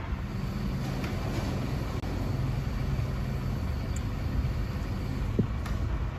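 Truck-mounted crane's engine running steadily, powering the hydraulic crane as it lifts a shipping container. A few faint clicks and a short squeak sound near the end.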